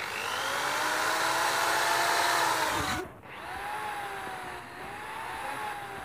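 Corded electric hammer drill running free in the air: the motor whines up to speed and runs for about three seconds, then winds down. It is then run in short squeezes, several times, its whine rising and dipping with each one.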